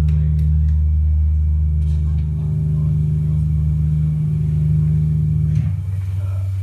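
Live rock band's amplified bass and guitars holding a low chord as a song rings out, moving to a lower note near the end and beginning to fade.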